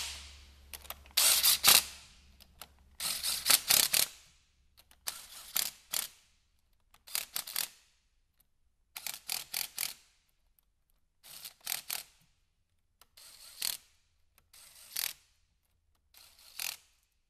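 Cordless power ratchet running in about ten short spurts of a second or less, the loudest in the first few seconds, snugging the cylinder-head bolts down lightly one after another.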